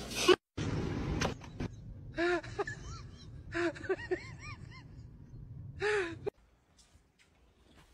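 Short high-pitched vocal calls, each rising and falling in pitch, in three bunches, over a faint steady background hiss that cuts off suddenly near the end.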